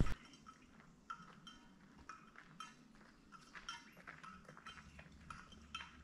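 Faint footsteps on a forest trail, walking at a steady pace of about two steps a second, each step a short sharp tick.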